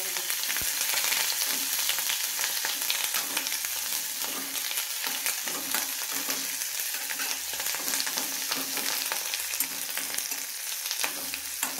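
Black nightshade leaves sizzling in hot ghee in a kadai as a metal spoon stirs them, with repeated scrapes and clicks of the spoon against the pan. The leaves are being sautéed until they wilt and are no longer raw.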